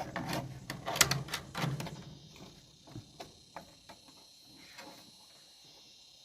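Sharp knocks and clattering, as of bamboo poles being handled and struck, densest in the first two seconds, then a few quieter taps and scrapes over a faint steady high whine.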